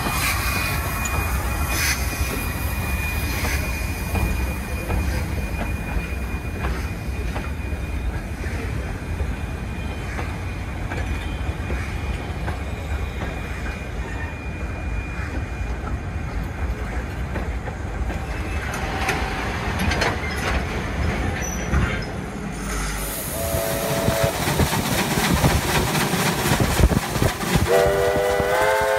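Steam-hauled passenger train of ex-Commonwealth Railways NM-class locomotive and timber carriages rolling past: wheel and rail rumble with clicks, and a steady high squeal for the first several seconds. Just before the end a steam whistle sounds a chord of several notes.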